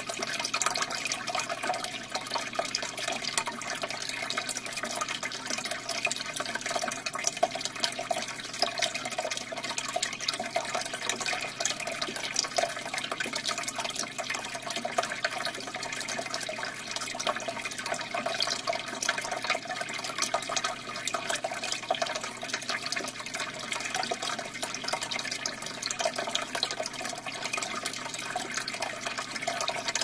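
Aquarium air stone bubbling: a steady stream of air bubbles rising and breaking at the water surface, a continuous watery fizz with many tiny pops.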